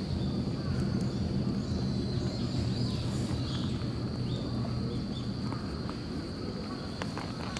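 Outdoor ambience: a steady, high-pitched insect trill over a low, steady hum, with a few faint chirps around the middle.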